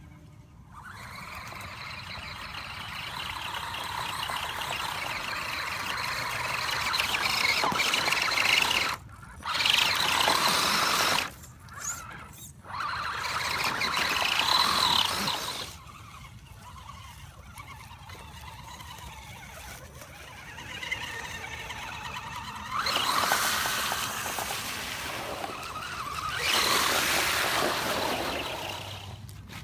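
Axial SCX10 RC crawler's electric motor and geartrain whining as the truck drives, the high whine coming and going with the throttle in several spells with short pauses.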